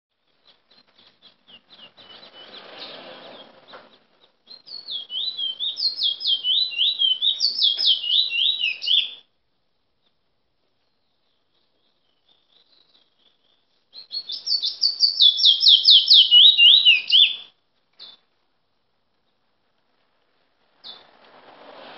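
A caged bullfinch (the Trinidad name for the chestnut-bellied seed finch) singing: two loud phrases of quick, repeated downward-slurred whistled notes, the first starting about five seconds in and lasting some four seconds, the second starting about fourteen seconds in, with softer scattered notes before and between them.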